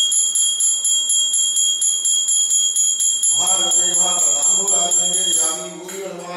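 Puja hand bell rung continuously in quick repeated strokes, a steady high ring; about halfway through a man starts chanting over it, and the bell stops near the end.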